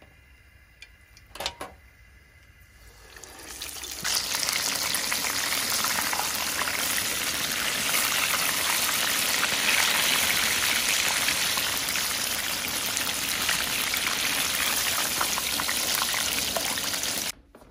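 Breaded chicken breasts deep-frying in oil at about 350°F: a loud, steady sizzle and bubbling that swells up about three seconds in and holds. Before it, a couple of light clicks.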